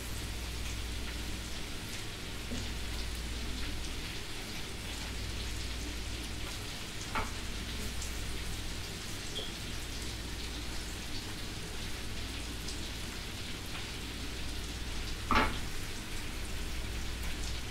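Seasoned chicken leg quarters sizzling as they are laid into a frying pan of hot butter and olive oil with chopped onion and garlic: a steady fine crackle. Two brief knocks, one about midway and one near the end.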